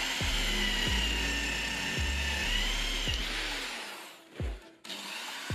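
Electric drill running, its twist bit cutting into a steel pipe clamped in a vise: a steady high motor whine with cutting hiss that fades out about three seconds in. Background music with a steady bass-drum beat plays throughout.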